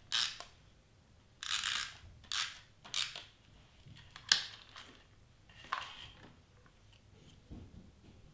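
Cardstock sheets rustling and crinkling as they are handled, in about six short bursts, with one sharp click about four seconds in.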